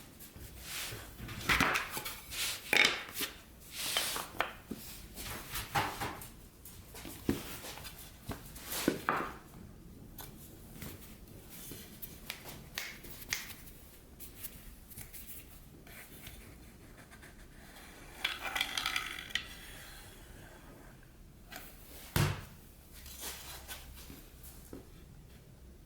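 Irregular knocks, clicks and scrapes of plywood pieces being handled and worked, with a longer scraping stretch about two-thirds of the way in and a sharp knock soon after.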